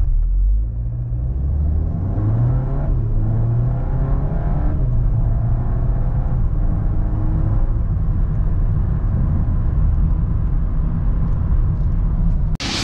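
Volkswagen Golf 8 R's turbocharged 2.0 TSI four-cylinder accelerating flat out from a standstill to about 100 km/h in Eco mode, heard from inside the cabin. The engine note climbs through each gear and drops at every upshift, and is cut off right at the end by a brief whoosh.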